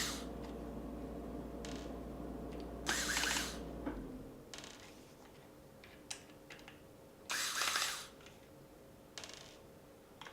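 Screws being undone from a laptop hard drive caddy with a small screwdriver: short whirring bursts about three to four seconds apart, with a few light clicks between them. A low steady hum stops about four seconds in.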